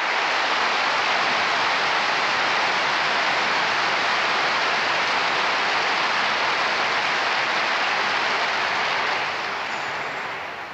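Large crowd applauding, a dense steady clatter of many hands that swells in, holds, and fades away near the end.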